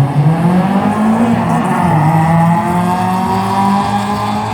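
Car engines running loudly at racing revs, with one engine's pitch climbing slowly through the middle as it pulls away.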